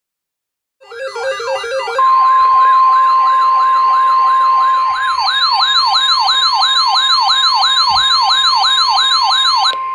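A rapid electronic siren wail, sweeping up and down nearly three times a second, starts about a second in. About two seconds in, a steady 1050 Hz NOAA Weather Radio warning alarm tone joins it, the attention signal that comes before a warning broadcast. The siren cuts off just before the end while the tone holds.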